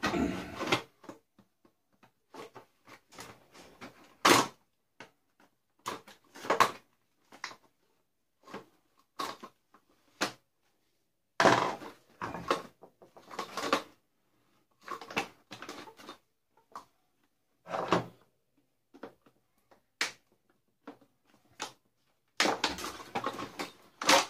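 Plastic housing and parts of a Dyson DC41 vacuum cleaner being taken apart: irregular knocks, clicks and short clattering rattles, with brief pauses between.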